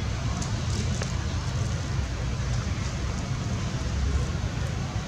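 Steady low rumbling background noise with a few faint light crackles, about half a second to a second in.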